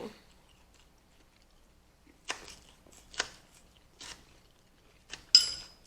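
Eating at the table: a few short, sharp crunches or clicks spaced about a second apart, then a louder sharp clink with a brief high ring near the end, like a utensil striking a plate.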